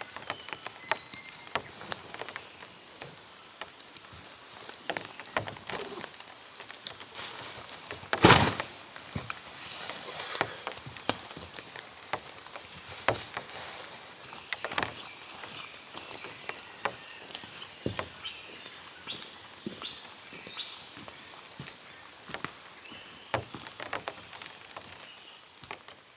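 Water drops falling on leaves and surfaces in wet forest, irregular taps with one louder knock about eight seconds in. A bird chirps briefly past the middle.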